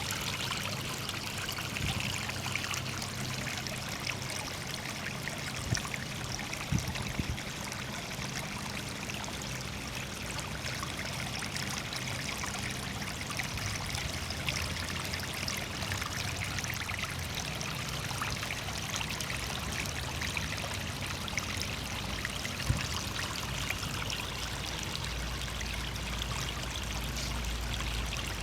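Water from a garden stream course trickling and splashing steadily over sandstone slabs into a pond, with a low rumble coming in near the end.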